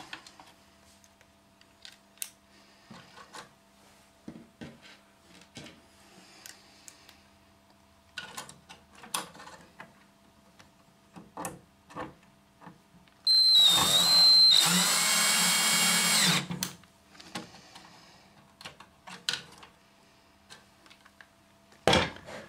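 Power drill-driver running for about three seconds past the middle of the stretch, driving screws as the card printer is put back together. Its whine steps up partway through. Scattered clicks and knocks of parts being handled come before and after it.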